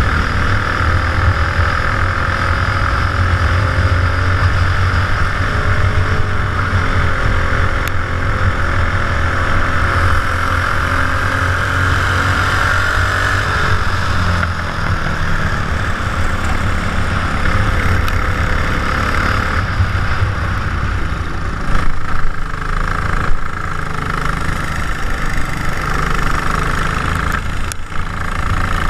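Racing kart engine running on track, its pitch rising and falling with the throttle, heard from a helmet-mounted camera. Two brief louder bumps come late on.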